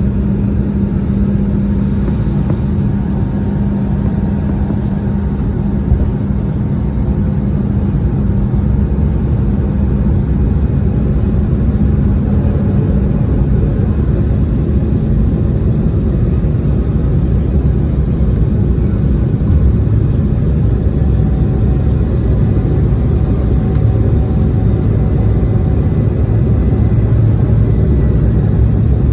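Jet airliner cabin noise from a window seat: a steady low roar of engines and airflow. A hum in the engine sound fades out about halfway through, and a lower hum comes in later, as the engine setting changes.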